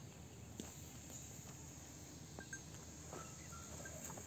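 Quiet open-air ambience: a faint steady high hiss, with a soft click about half a second in and a few brief, faint high chirps in the second half.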